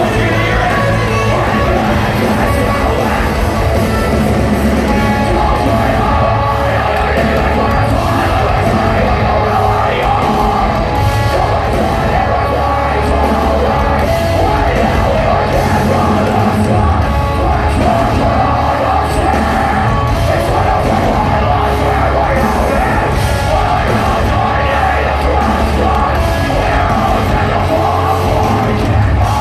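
Live rock band playing loud, heavy music with yelled and sung vocals.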